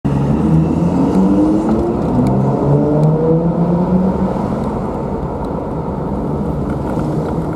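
Car engine accelerating, its pitch rising through the first few seconds, over a steady rumble of road and tyre noise.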